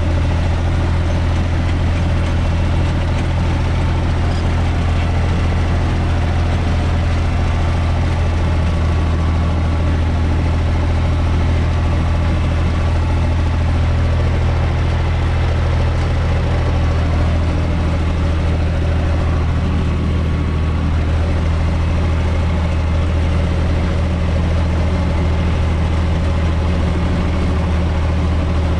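UTB 445 tractor's diesel engine running steadily at a constant speed with a deep hum, heard from inside the cab.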